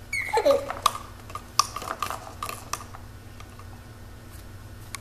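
A baby gives a short squeal that falls in pitch, followed by a scatter of sharp plastic clicks and rattles from the exersaucer's toys being handled over the next two seconds or so.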